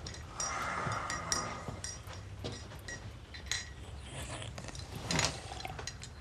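Crockery and cutlery clinking and knocking, a string of light clicks. There is a short hiss about half a second in and a louder knock about five seconds in.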